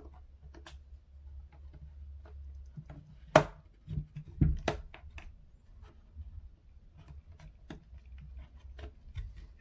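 Small clicks and taps of hands handling and prying at a Logitech G915 TKL keyboard's plastic case, with one sharp snap about three and a half seconds in and a few knocks just after. The case will not come apart because two screws underneath are still in.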